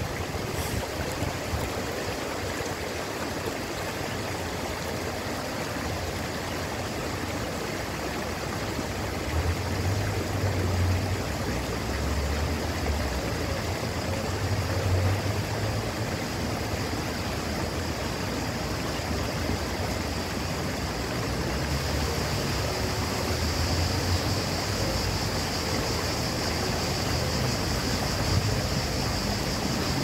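Water splashing and trickling steadily down a small ornamental rock waterfall.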